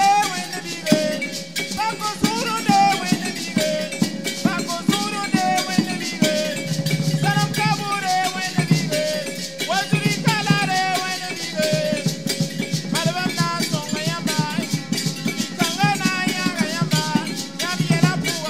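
Live song by a group of voices, accompanied by drums and other hand percussion keeping a fast, steady beat.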